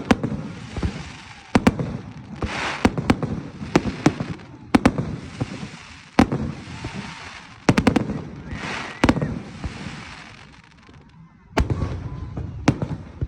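A fireworks display: shells bursting with a dozen or so sharp booms and bangs at irregular intervals, some close together, with hissing, sizzling showers between the bursts.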